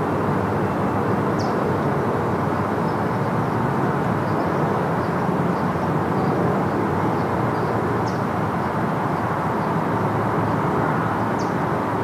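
Steady road and tyre noise with engine hum from a car cruising at speed, heard inside the car's cabin.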